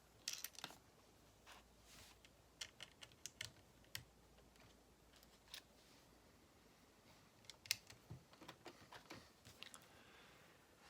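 Faint, scattered clicks and taps of small plastic Lego pieces being handled and pressed into place on a model, with a few sharper clicks a little before the two-thirds mark.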